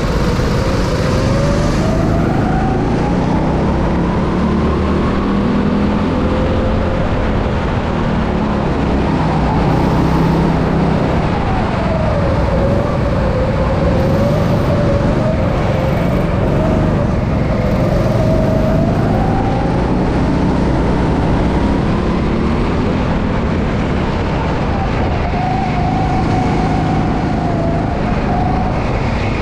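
Go-kart engine running, its pitch rising and falling every few seconds as the throttle opens and closes, over a steady low rumble.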